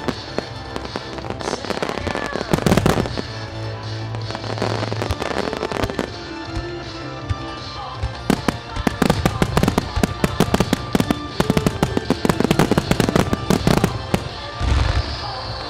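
Starmine fireworks by Marutamaya Ogatsu: rapid volleys of shells launching and bursting, with sharp bangs and crackle. The bangs come thickest in the second half, and there is a deep boom near the end. Music plays under the display.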